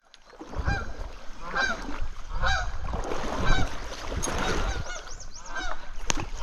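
Goose honking over and over, about one call a second, over a low rumbling noise.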